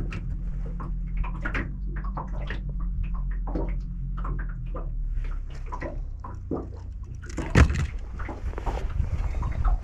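Water sloshing with an irregular run of short knocks and splashes, as a landed brown trout is handled in a small fishing boat, and one louder knock or splash near the end. A steady low hum fades out about halfway through.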